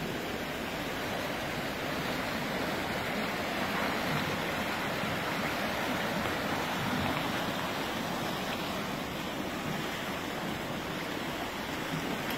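Muddy creek in flood after heavy rain, its fast water rushing steadily.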